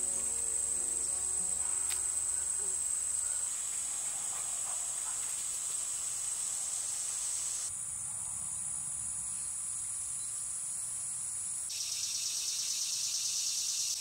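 Chorus of summer insects singing in a steady high shrill, its pitch and texture changing abruptly a few times. Near the end it becomes a fuller, pulsing chorus.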